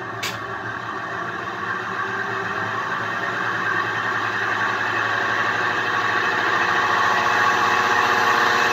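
A 1955 Frigidaire Imperial Unimatic washer spinning up in its spin cycle with an empty tub: a steady motor-and-drive whir that grows louder as the tub accelerates. A short click sounds about a quarter second in.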